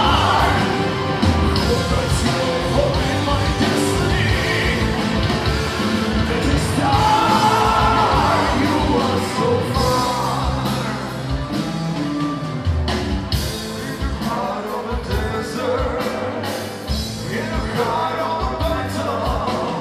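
Symphonic metal band playing live: electric guitars, keyboards and drums, with a singer's sung phrases coming in near the start, in the middle and near the end.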